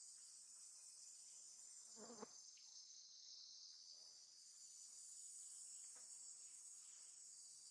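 Faint, steady high-pitched chorus of insects. About two seconds in comes one brief, louder low sound.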